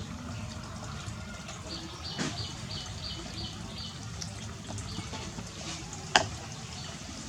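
Water running and splashing, as for bathing a small monkey, with a quick run of short high chirps about two seconds in and a sharp knock about six seconds in.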